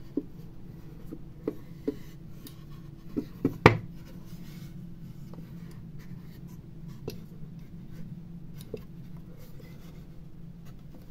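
Hands handling an unfinished linden-wood box blank: light rubbing with scattered small taps and clicks of wood, and one sharper knock about three and a half seconds in.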